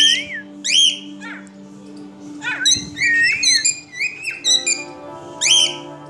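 Cockatiel whistling: a run of short whistled phrases that slide up and down in pitch, coming in quick groups several times, over steady low sustained tones.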